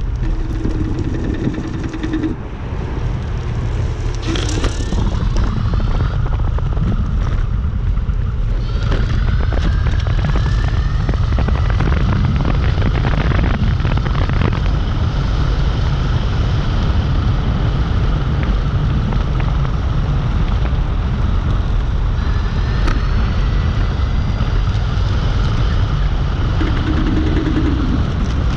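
Heavy wind rumble buffeting the microphone while riding a Dualtron Compact electric scooter, with a faint whine from its hub motor rising in pitch a couple of times.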